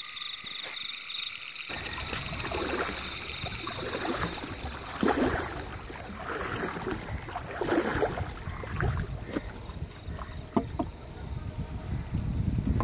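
Frogs calling in a fast, pulsing chorus. About two seconds in it cuts to an outdoor ambience: a low rumble with scattered knocks and splashes.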